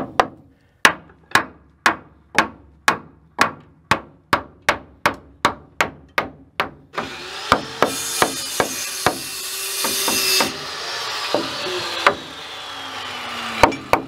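Hammer blows driving nails into wooden framing, a steady run of sharp strikes at about two a second that quickens toward three a second. Partway through, a power saw cuts for a few seconds, with a few more blows over it, then winds down with a falling pitch.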